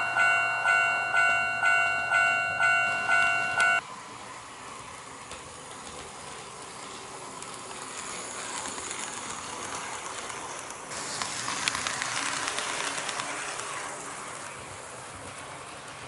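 Model railway level crossing alarm ringing its electronic ding-ding tone a little over twice a second, cutting off suddenly about four seconds in. Then HO-scale model trains run on KATO Unitrack, a steady rolling hiss of wheels on rail that grows louder with clicking from rail joints as they pass close, loudest a little past the middle.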